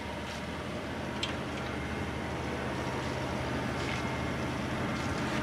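TOS BU28 universal cylindrical grinder running without load: a steady machine hum with a few faint ticks, growing a little louder.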